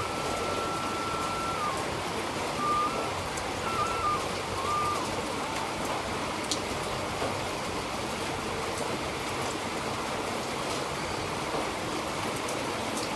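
Steady rushing water noise, with a faint melody of held, stepping notes over it for the first five seconds.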